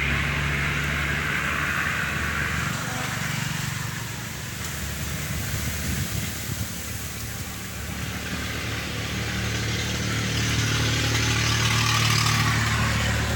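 A motor engine running steadily with a low hum and a hiss above it. It fades down a few seconds in and builds back up toward the end.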